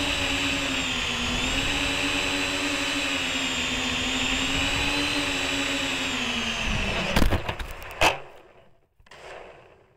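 MJX Bugs 3 quadcopter's four brushless motors and propellers running with a high whine, the pitch rising and falling a little with the throttle, recorded from the drone itself. About seven seconds in the motors wind down and the drone comes down on the beach stones with two sharp knocks about a second apart, followed by a brief fainter rustle.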